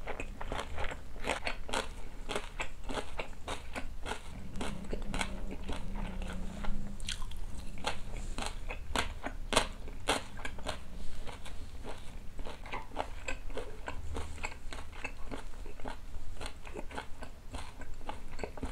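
A person chewing a big mouthful of boiled pork wrapped in salted napa cabbage with kimchi, close to the microphone: crunching, with irregular sharp crunches throughout.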